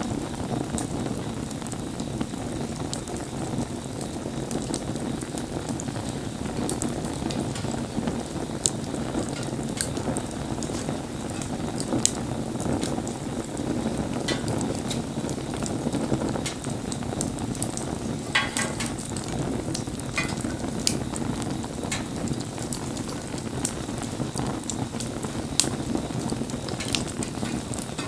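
Wood bonfire burning, with a steady rush of flame and frequent sharp crackles and pops from the burning wood.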